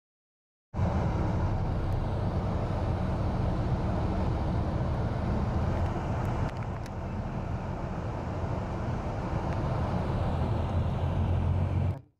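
Steady low rumble of a moving bus, its engine and road noise heard from inside the cabin. It starts about a second in and cuts off suddenly near the end.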